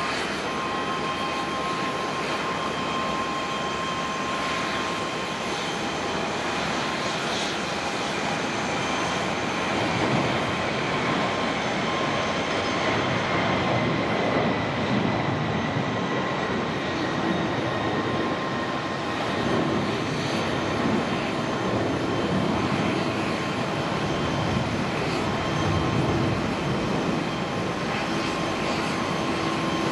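Twin jet engines of an ANA Boeing 767-300ER at takeoff thrust, through the takeoff roll, lift-off and climb-out. It is a steady jet roar with a faint whine that slowly falls in pitch, growing a little louder about ten seconds in.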